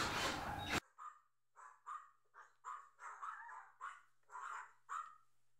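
A cordless drill driving a long screw into wood stops abruptly under a second in. Then a dog barks faintly, about a dozen short barks spread over the rest.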